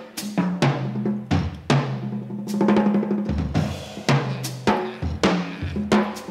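Jazz drum kit played freely, with snare, tom and cymbal strikes and rolls several times a second, over a double bass holding low notes that step from pitch to pitch.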